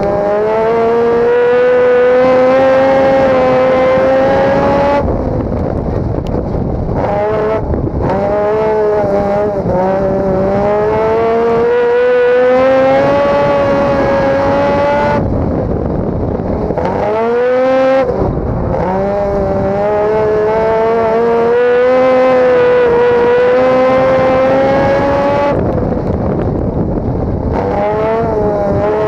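Rotary engine of a dirt-oval hotrod race car, heard from inside the cockpit, held on the throttle with its pitch climbing slowly. Three times, about ten seconds apart, the note drops away abruptly and turns rough as the throttle is lifted for the turns, then picks up and climbs again.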